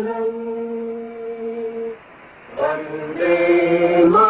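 Chant sung on long held notes: one note held for about two seconds, a short break, then the chant picks up again on new notes.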